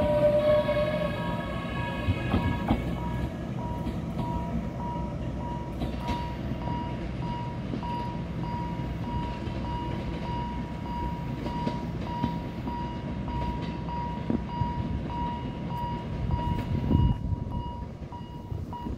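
A train horn ends about a second in and a higher horn note fades out by about three seconds. After that comes the steady low rumble of trains pulling out, the Puyuma express and the SL-25 steam locomotive, over a thin, steady pulsing beep.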